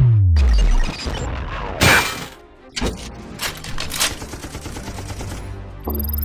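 Battle sound effects over music: a deep boom whose pitch falls over the first second, then a few sharp gunshot-like blasts and impacts, and a rising whoosh near the end.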